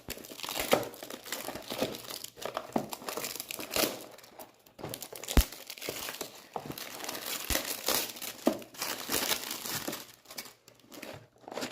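A blind box's packaging being torn open by hand: continuous crinkling and tearing with scattered sharp snaps, the loudest about five seconds in.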